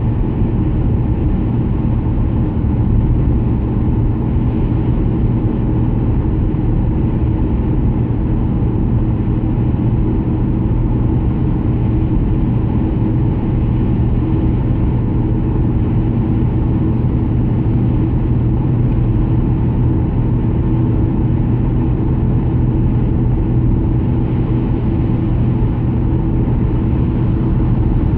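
Steady road and engine noise heard inside a moving car's cabin: an even low drone with a constant hum underneath.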